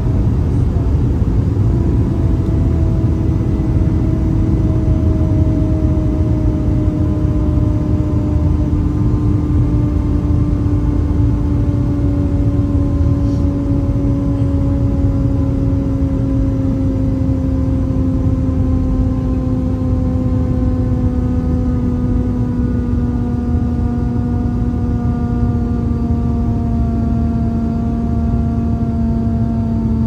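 Boeing 757-200 cabin noise: a steady low rumble of engines and airflow, with an engine whine that gradually falls in pitch over the whole stretch as the engines wind down.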